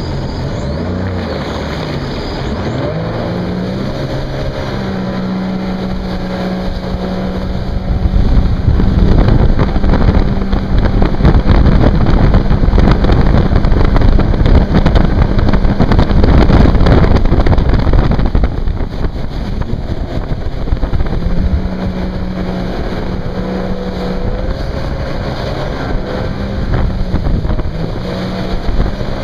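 The supercharged, intercooled 255 hp engine of a 2011 Sea-Doo Speedster 150 jet boat runs with a steady drone under the hiss of its jet spray. From about eight seconds in, a louder rush of water spray and wind covers it for some ten seconds, then the engine drone comes through again.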